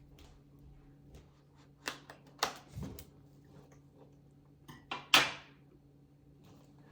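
A handful of sharp knocks and clatters, the loudest about five seconds in, over a faint steady hum.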